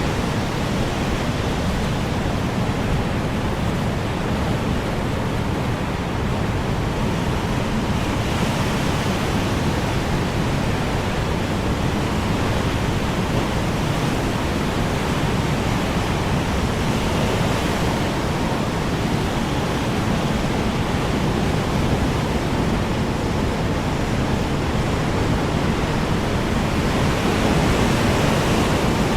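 Strong wind blowing steadily, a continuous rushing noise that swells a little a few times, with no gaps.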